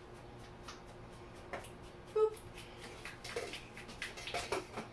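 Faint, scattered knocks and clinks of a cooking pot being picked up and handled, the sharpest about two seconds in, over a steady low hum.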